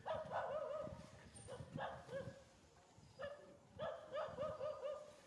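Infant macaque giving a series of high, warbling whimpering cries in about five short bouts. These are the distress calls of a baby trying to nurse.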